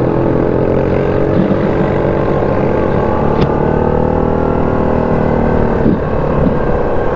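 ATV engine running steadily while riding along a trail, its pitch drifting up and down slightly with the throttle and easing off briefly about six seconds in.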